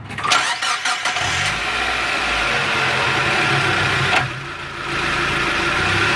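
Mazda Miata four-cylinder engine cranked by the starter and catching, then running steadily. A single sharp clunk about four seconds in, after which the engine note briefly dips; this is the clunk that began after the clutch was replaced.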